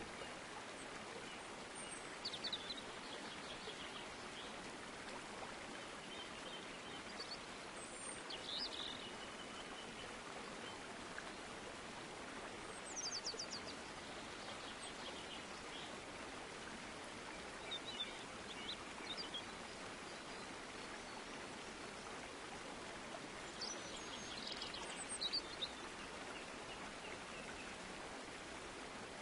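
Outdoor nature ambience: a steady hiss with birds chirping and trilling in short calls every few seconds, loudest near the end.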